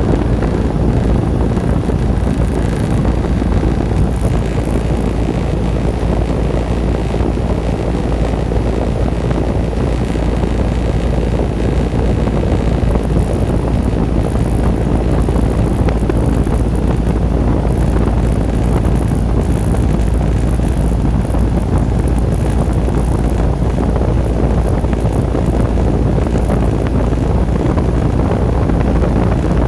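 Lennox package heat pump running steadily in cooling mode: a loud, even rush of fan air with a deep low hum underneath, unchanging throughout.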